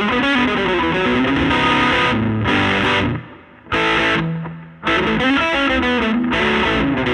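Electric guitar with P90 pickups played through the overdriven gain channel of a Laney Lionheart L5 Studio valve amp and a miked 15-inch Jensen Alnico speaker. Distorted chords and single-note lines come in phrases, with two brief breaks about three and four and a half seconds in.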